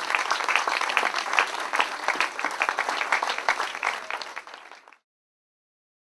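Audience applauding, many hands clapping. It dies down slightly and is cut off abruptly about five seconds in.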